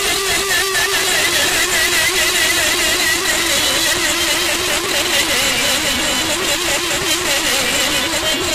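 A reed wind instrument played through an amplified sound system, holding long notes with a fast, even wavering in pitch over a dense, steady noise. Near the end the melody moves up to a higher note.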